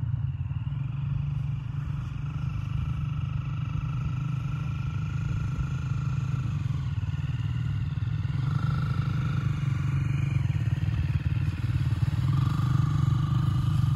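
Dirt bike engines running in the distance, their whine swelling and fading a few times over a steady low rumble.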